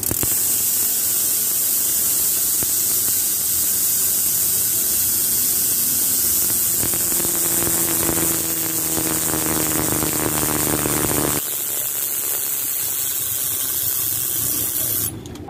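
Bicycle rear hub freewheeling as the wheel spins, its pawls and ratchet making a loud, high-pitched buzz of rapid clicks. A faint whine joins it partway through, and it eases a little near the end.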